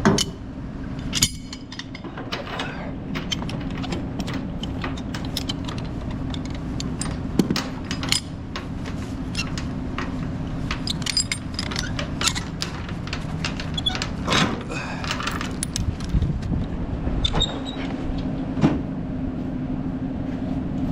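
Steel tie-down chain clinking and clanking as it is handled for securing a load, with many sharp metal clinks scattered irregularly throughout. A steady engine hum runs underneath.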